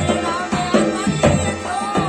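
Rajasthani folk bhajan music: a hand drum beats a steady rhythm under a bending melody line.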